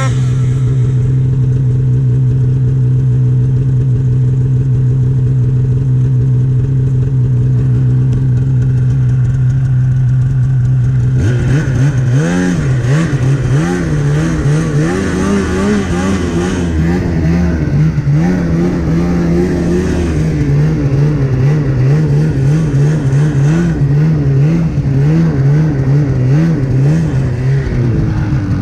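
Polaris snowmobile engine running at a steady pitch, then about eleven seconds in its pitch starts rising and falling over and over as the throttle and load change while riding.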